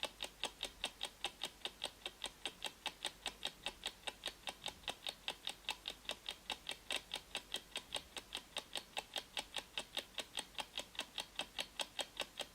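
Clock ticking sound effect of a countdown timer: a steady run of sharp ticks, about four a second.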